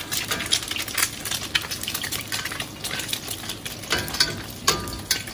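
An egg frying in a wok of very hot oil, sizzling with constant crackling pops. Twice near the end, a metal utensil strikes the wok, the second time with a short ring.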